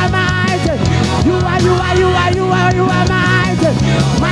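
Live gospel praise band music with a steady beat and sustained keyboard and guitar lines, with sung voices briefly around the start and end.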